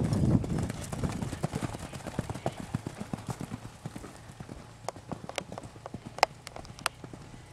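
Two racehorses galloping on a sand track, a rapid drumming of hoofbeats that fades as they pull away. A few sharper clicks stand out about five to seven seconds in.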